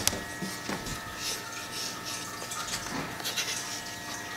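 Windshield washer fluid leaking under the hood of a BMW E36, trickling and hissing in irregular spurts with a few small clicks as the hoses are handled, over a faint steady whine. The fluid is escaping from the washer plumbing instead of reaching the windshield.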